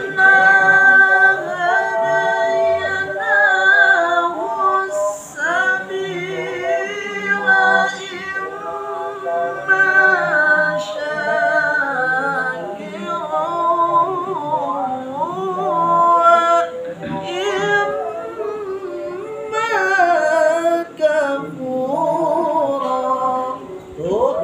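Quran recitation (tilawah) in a high, unaccompanied solo voice, chanted in long held and ornamented melodic phrases with short pauses for breath.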